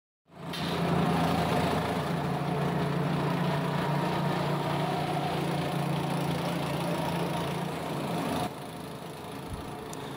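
Motor of a coconut-processing machine running steadily with a constant low hum. It drops to a quieter steady level about eight and a half seconds in.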